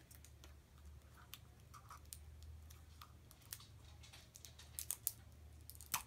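Faint clicks and crackles of a plastic Mashems blind capsule being picked at and twisted open by hand, with a few sharper clicks about five seconds in.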